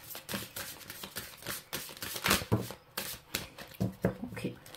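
Oracle card deck being shuffled by hand: a quick, irregular run of card clicks and slaps.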